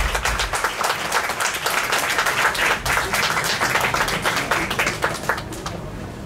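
Audience clapping after a song ends, dense at first, then thinning out and fading near the end.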